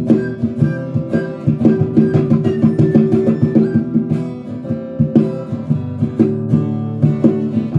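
Instrumental stretch of a band's song: guitars playing plucked notes and chords over sustained tones, with no singing.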